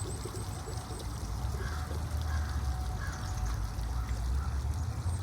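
Water fountain splashing and pouring steadily, over a low rumble.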